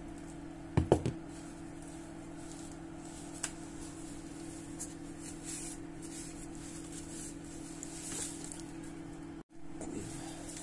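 A metal engine piston handled and wiped with a paper towel: a few sharp knocks about a second in, then soft paper rustling, over a steady low electrical hum.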